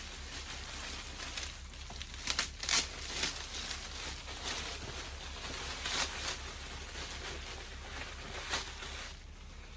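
Packaging crinkling and rustling as it is handled, in irregular brief bursts.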